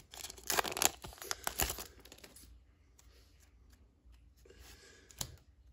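A Pokémon TCG booster pack's foil wrapper being torn open, crinkling and crackling for about two seconds. Then faint rustling, and a single short tap near the end.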